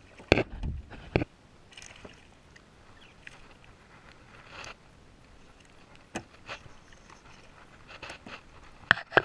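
Knocks and bumps on a small plastic boat and the camera mount on its metal rail: two sharp knocks in the first second, then a few faint clicks and taps.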